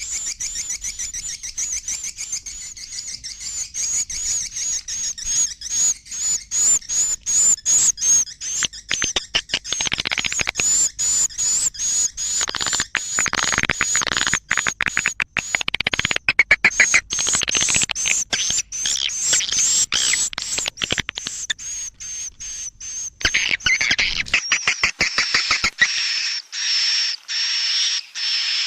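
Swiftlet 'suara inap' roosting calls: dense, rapid, high-pitched chirps and clicks from many birds at once, fuller and louder in the middle stretch. This is the kind of call recording played in swiftlet houses to lure the birds in to roost.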